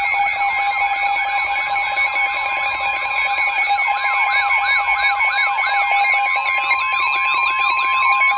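Weather radio alert: a loud steady alarm tone, the NOAA Weather Radio warning tone that heralds a warning broadcast, layered with a siren-like warble that rises and falls about three times a second. The warble fades near the end, leaving the steady tone.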